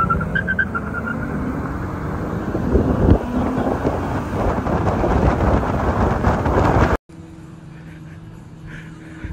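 Cars accelerating away from a green light, heard from inside a following car: a loud, steady rush of engine, exhaust and road noise that swells briefly about three seconds in. It cuts off suddenly about seven seconds in to a much quieter low, steady hum.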